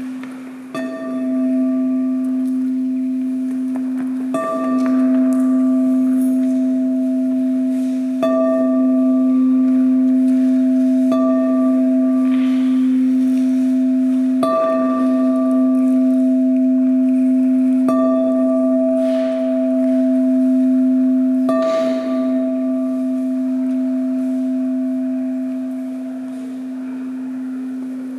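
Large black singing bowl struck with a ball-tipped mallet about every three and a half seconds, seven strikes in all. Each strike renews one steady low humming tone with fainter overtones above it. The tone rings on between strikes and slowly fades after the last one.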